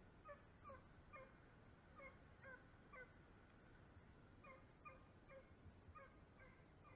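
Beagles giving faint, short yips, each call dropping slightly in pitch, about two a second, with a pause of about a second and a half near the middle. The hounds are working a rabbit's scent trail.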